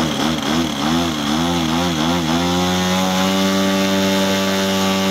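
Large RC aerobatic model plane's engine and propeller running on the ground. The throttle is blipped up and down about twice a second, then held at a steady higher speed from about two and a half seconds in, before dropping sharply at the very end.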